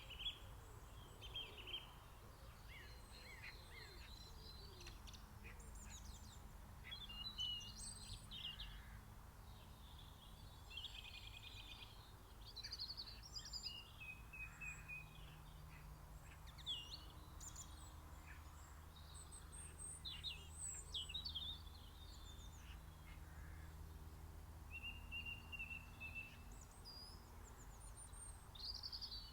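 Several garden songbirds singing and calling at once, a mix of short chirps, trills and whistled phrases, over a steady low background rumble.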